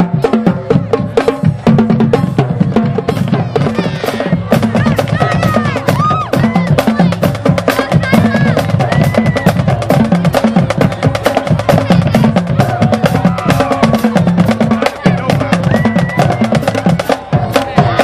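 A band playing music, drums and percussion keeping a quick steady beat under sustained pitched notes.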